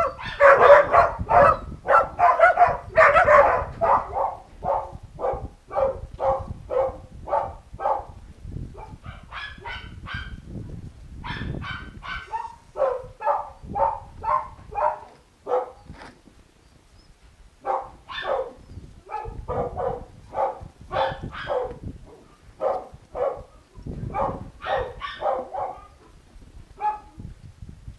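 Puppies barking in long runs of short barks, about two a second. The barks are loudest and densest in the first four seconds, with a pause of about two seconds a little past the middle.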